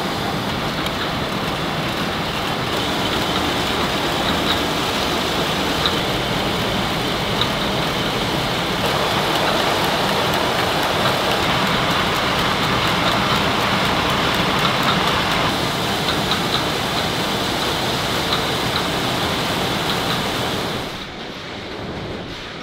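Yarn winding machines running steadily as green synthetic turf yarn winds onto spools: a dense, even mechanical clatter with a faint steady high whine. Near the end it drops to a quieter hum.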